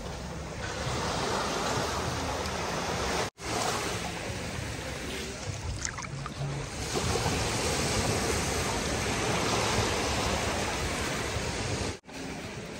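Sea waves breaking and washing on the shore, a steady rushing that swells and eases, cut off for an instant twice.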